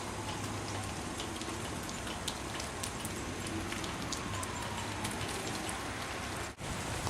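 Wet snowfall hitting the ground and surrounding surfaces: a steady hiss dotted with many small ticks, broken by a brief dropout about six and a half seconds in.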